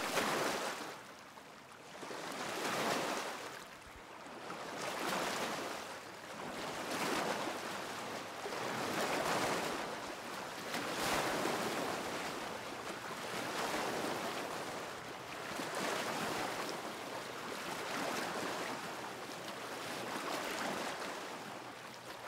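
Small lake waves lapping at the shore, the wash swelling and fading about every two seconds.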